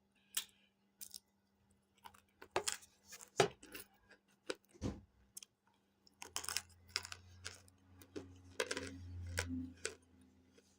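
Hard baked cornstarch chunks crunching and being chewed close to the mic: scattered sharp crunches at first, then denser crunching in the second half with a low hum beneath it.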